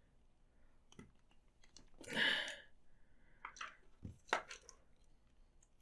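Plastic action-figure parts handled and pressed together by hand as a heat-softened socket is pushed onto the shoulder joint: scattered small plastic clicks and creaks, a brief scuffing noise about two seconds in, and a sharper click about four seconds in.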